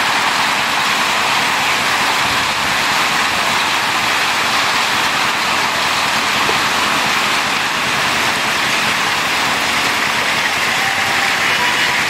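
Heavy rain mixed with hail pelting a paved road, a steady, even hiss.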